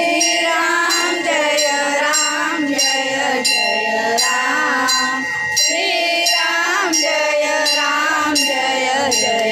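Devotional aarti song, sung with a steady accompaniment of metallic bell strikes at about three a second.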